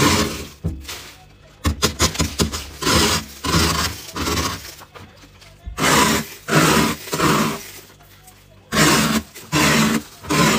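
Plastic scoop scraping thick frost off a freezer's inner wall in repeated strokes, each under a second long, with a run of quick crackles about two seconds in.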